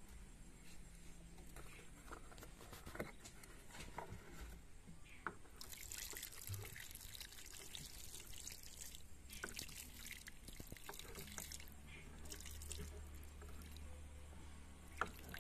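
Water poured by hand onto loose soil in a clay pot: faint trickling, splashing and dripping, most continuous from about six to nine seconds in.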